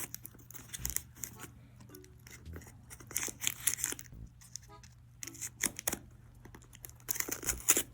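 A cardboard shipping box being opened by hand: packing tape cut and torn in short, intermittent scraping strokes.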